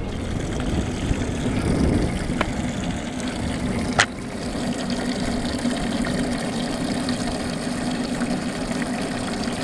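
Boat livewell pump (Tsunami T500 aerator) running with a steady hum while water splashes into the livewell. A single sharp click comes about four seconds in.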